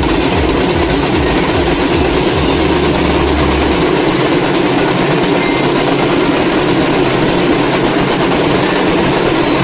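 Loud, dense din of a street crowd with drums being beaten steadily and rapidly, with no clear melody. A low hum sits under it for about a second before the middle, then thins out.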